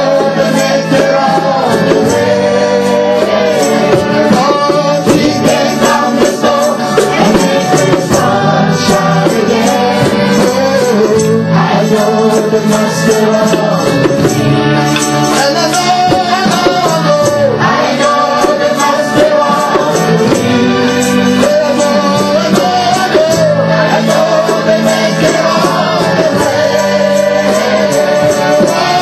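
Live church worship music: voices singing over band accompaniment with percussion.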